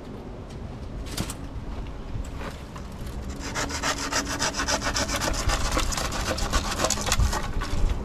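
Rough rasping scrape made of a dense run of short strokes, starting a little over three seconds in and lasting about four seconds, over a faint low hum.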